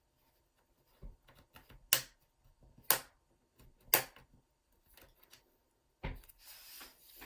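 Snap-fit clips of an MSI GP66 Leopard laptop's case popping loose as the front lip is pried off the base: three sharp, light pops about a second apart with fainter clicks between them, then a knock and a scraping rub near the end. Light popping like this is the normal sound of the clips releasing, not the harsh crack of breaking plastic.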